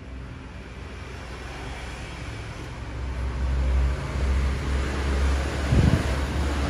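Road traffic noise: a motor vehicle's low engine rumble growing louder through the second half as it passes.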